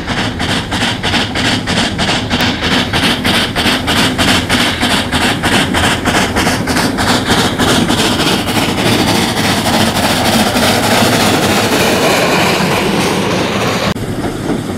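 Coffee Pot steam motor coach working along the track, its exhaust beating in quick, even chuffs of about four a second. About halfway through the beats fade into a steadier, louder running noise of the coach. Near the end the sound drops off abruptly.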